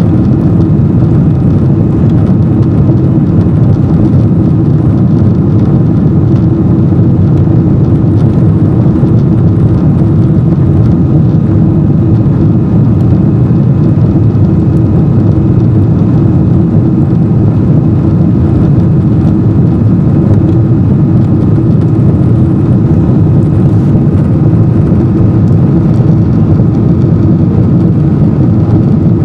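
Boeing 777-200 twin-jet engines heard from inside the cabin during the climb after take-off: a loud, steady roar with a low hum and a faint steady whine above it.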